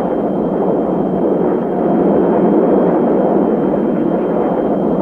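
Jet noise from a pair of A-10 Thunderbolt II attack aircraft passing overhead, their twin General Electric TF34 turbofan engines giving a loud, steady rushing noise with a faint, thin, steady high tone above it.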